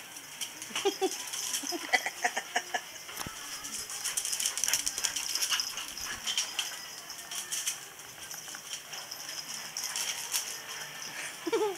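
Two dogs, a large one and a small puppy, play-fighting: a few short yips in the first three seconds and a falling yelp near the end, over scuffling and the clicking of paws and claws on paving tiles.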